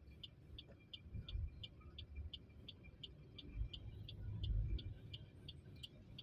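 Faint low rumble of a vehicle moving slowly in traffic, swelling briefly about four seconds in, with a steady high ticking about three times a second.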